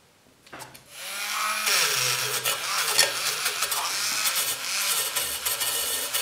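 Hand-held rotary tool spinning a small wire brush against the rusty iron of an antique areca nut cutter, scrubbing off the rust. After a few clicks the tool's noise starts about a second in and runs loud and steady, its whine wavering as the brush bears on the metal.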